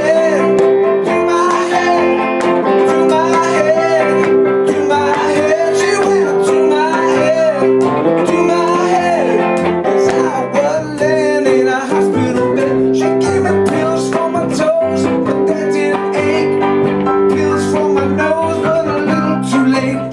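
Live band playing a blues-tinged rock-and-roll number: a man singing lead over electric guitar and the band's accompaniment.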